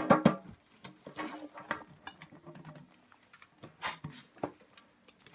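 Hands working at the lid of a round metal popcorn tin, giving scattered light metallic clicks, taps and scrapes as the lid is pried and twisted.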